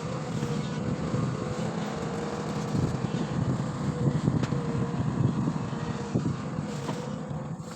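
Long-boom excavator's diesel engine running steadily, with a steady higher whine over the low engine rumble.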